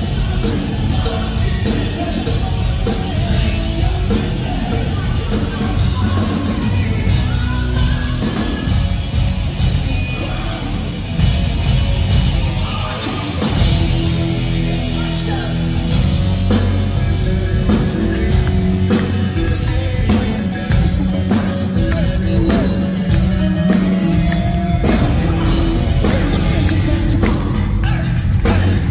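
Hard rock band playing live at full volume: electric guitars, bass and drums with a lead singer.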